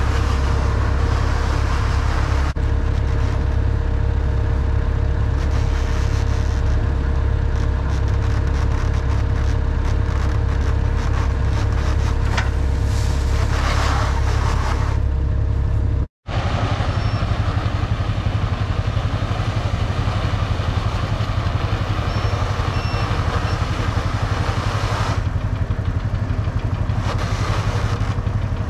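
Tractor engine running steadily while it drives a round-bale wrapper turning a bale in plastic film. The sound breaks off for an instant about sixteen seconds in, then the engine carries on.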